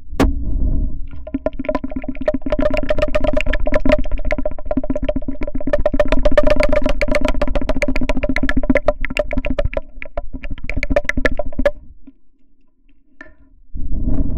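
Foley imitation of a washing machine drain hose gurgling: a steady low hum overlaid by rapid, continuous clicking, stopping about three-quarters of the way through and starting again near the end.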